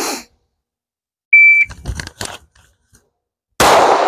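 A shot-timer start beep, one short steady high tone, then a few clicks and rustles as the Glock 19X is drawn from the holster, and a single 9mm pistol shot about 2.3 seconds after the beep that rings out and fades over about a second.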